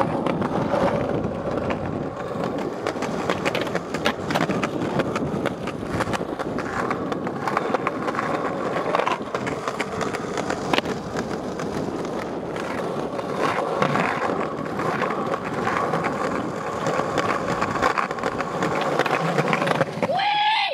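Skateboard wheels rolling over stone paving slabs, a continuous rumble broken now and then by sharp clacks of the board.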